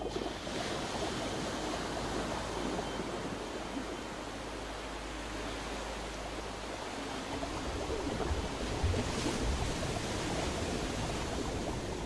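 Sea water washing and splashing against the side of a boat: a steady rushing noise, with added low rumbling in the second half.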